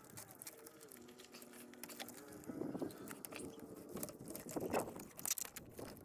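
Quiet clicks, crackles and rustling of plastic electrical connectors and corrugated wiring loom being worked loose by hand from the ignition coil packs and fuel injectors of a Gen III LS engine.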